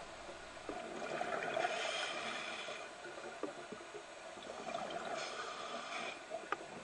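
Scuba diver's exhaled air bubbling out underwater, in two surges a few seconds apart, with a few faint clicks.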